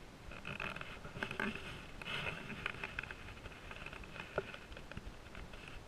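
Irregular rustling, taps and clicks of a caught snook being handled close to the microphone, with one sharper click about four and a half seconds in.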